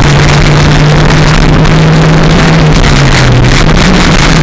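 Toyota 4E-FTE turbocharged 1.3-litre four-cylinder engine running loud under way, heard from inside the car. Its note holds steady, dips briefly about three seconds in, then climbs again.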